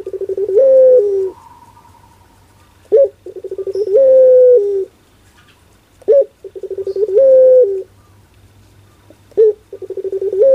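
Puter pelung, a long-cooing Barbary (ringneck) dove, cooing over and over, about once every three seconds. Each coo is a short sharp note, then a quick stuttering roll, then a long drawn-out note that drops at the end.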